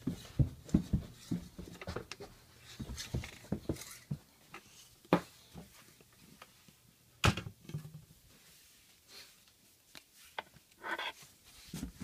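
Footsteps going down stairs, with irregular knocks and bumps; the loudest knock comes about seven seconds in.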